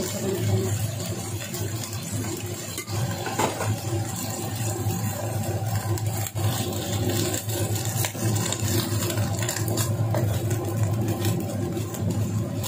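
Choy sum being stir-fried in a wok: a spatula tossing the greens and knocking against the pan a few times, over frying and a steady low hum.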